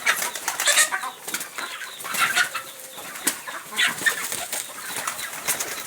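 Chickens and pigeons moving about a feeding area: irregular wing flaps and short rustling flurries, with the odd call.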